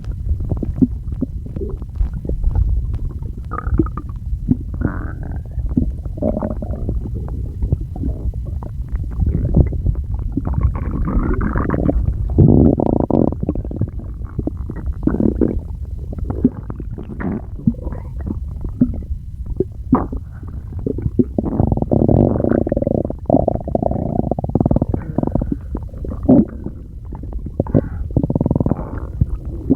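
Human stomach growling and gurgling: a continuous low rumble with many short, irregular gurgles, and longer, louder gurgling stretches about twelve seconds in and again around twenty-two seconds.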